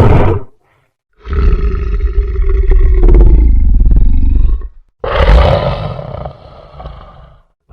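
Monster roar sound effect: two long, deep, growling roars, the first about three and a half seconds and the second shorter and fading out, after the tail end of an earlier roar.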